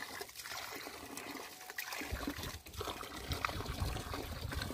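Water trickling and splashing from a cut PVC water line into the wet hole, a weak flow from low mains pressure, with small scattered clicks of hands working at the pipe.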